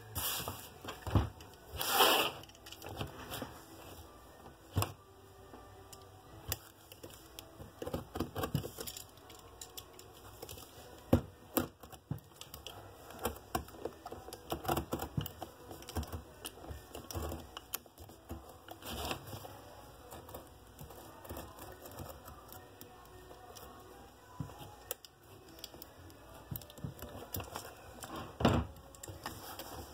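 Sole being cut and pried off a Red Wing Iron Ranger leather work boot: irregular scraping and ripping with sharp clicks of the hand tool against the boot, a few louder tearing pulls among quieter working noises.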